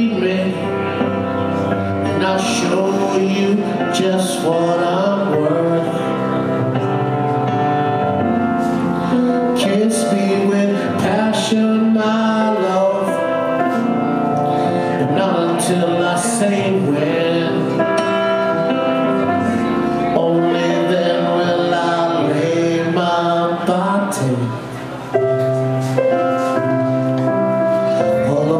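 A man singing a song into a microphone over instrumental music, with a short drop in loudness a few seconds before the end.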